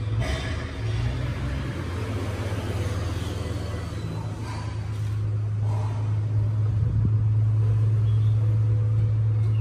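Steady low rumble, growing louder and steadier about halfway through.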